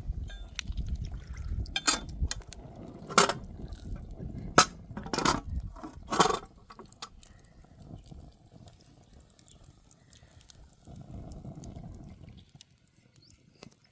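Several sharp clinks and knocks of dishes or glassware being handled, spread over a few seconds, over a low rumble that fades out about five seconds in.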